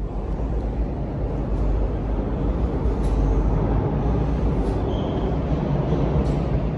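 Steady low rumble of a moving vehicle, with loud running noise that eases off at the very end.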